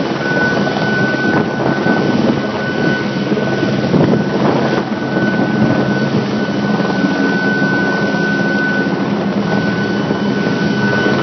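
Helicopter hovering overhead with a load on a long line: steady rotor and engine noise with a steady high whine running through it.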